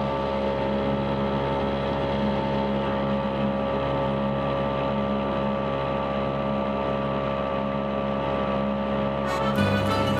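Small outboard motor running steadily at cruising speed, pushing an aluminium boat along. Music comes in near the end.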